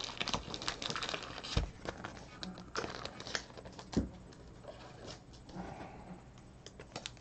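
Soft, irregular clicks, taps and rustles of trading cards being handled and set down on a table.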